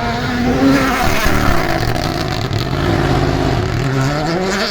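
Rally car engine with the revs falling sharply about a second in, running low, then rising again near the end.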